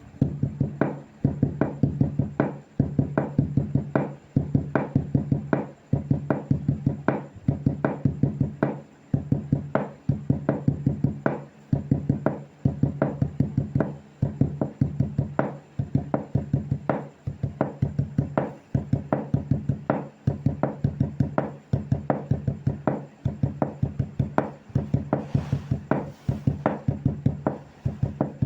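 Wood being struck in a fast rhythmic pattern, clusters of sharp knocks repeating about every two seconds, over a low resonant hum.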